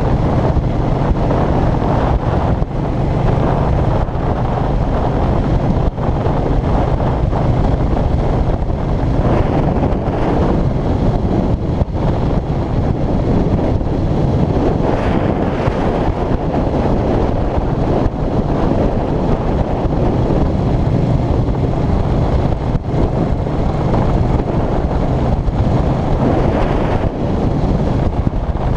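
Heavy wind noise buffeting a GoPro Hero3+ in an open skeleton housing chin-mounted on a motorcycle helmet, over the steady running of a 2005 Suzuki Boulevard C50's 805 cc V-twin at cruising speed.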